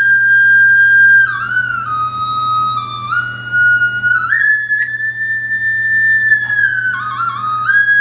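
Recording of an Indian bamboo flute (bansuri) played through laptop speakers. It holds long high notes with short slides and ornamental trills, steps down to a lower note about a second in and again near seven seconds, and returns to the high note each time. A faint steady low hum runs underneath.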